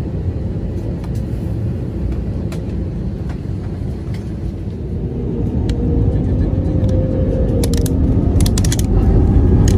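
Jet airliner engine rumble heard inside the passenger cabin as the plane pulls away from the gate. The rumble grows louder from about halfway through, with a faint whine rising in pitch near the end and a few sharp clicks.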